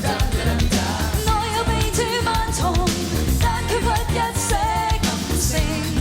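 Live Cantopop band performance with drums and bass keeping a steady beat under a wavering, vibrato-laden melody line that the tagger hears as singing.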